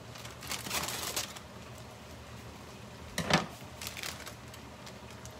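A hot microwaved plastic bag of riced cauliflower being snipped open with scissors and handled, crinkling, with one sharp clack about three seconds in.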